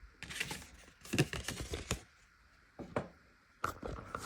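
Packaging handled by hand during an unboxing: irregular rustling and light clicks in several short groups, with a pause at about two seconds.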